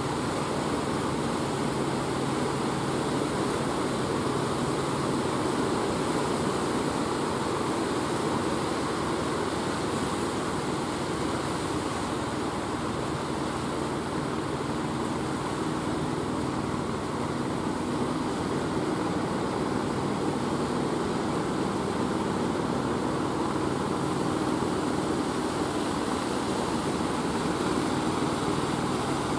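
Fishing boat's engine running steadily, a low hum under the wash of surf.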